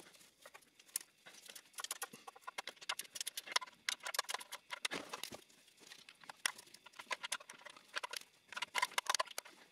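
Faint clicking of a ratchet wrench in short rapid runs, with small metallic knocks, as the oil sump bolts are cracked loose one after another.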